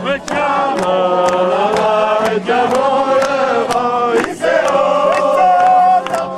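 A group of people singing a chant together in chorus, their held notes changing in steps, over a regular beat of sharp clicks.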